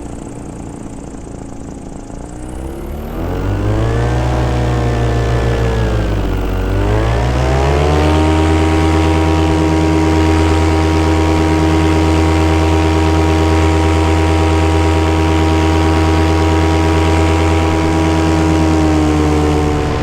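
Paramotor engine and propeller in flight, throttled up about three seconds in, eased back briefly, then opened up again and held at a steady high pitch.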